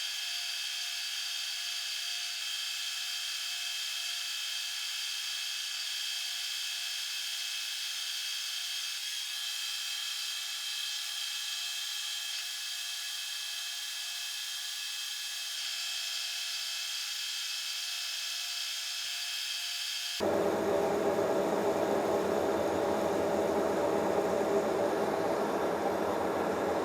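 Metal lathe running steadily while turning a steel round, a machine hum with several constant tones. About 20 seconds in it changes abruptly to a louder, fuller running sound.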